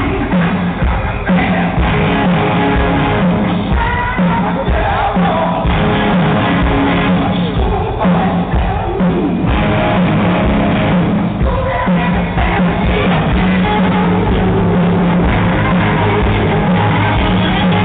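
Hard rock band playing live in an arena: distorted electric guitars, drums and a singing voice, loud and steady, with the top end cut off by a camera's microphone.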